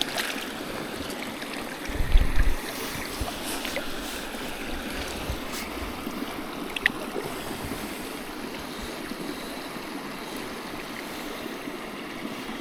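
Small mountain stream running over rocks, a steady rush of water. About two seconds in there is a brief low thump, the loudest moment, and a single sharp click near the middle.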